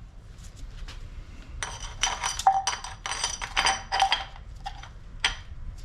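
Metal tools and parts clinking and tapping against each other, with a quick run of ringing clinks in the middle and a few single ones after.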